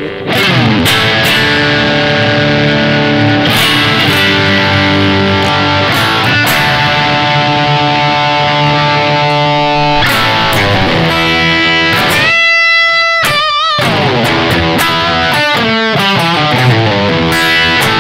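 Yamaha Pacifica PAC212 electric guitar played through a Yamaha THR10 amp on a high-gain modern distortion preset: sustained distorted chords and riffs, a single note held with wide vibrato about twelve seconds in, then quick runs of notes.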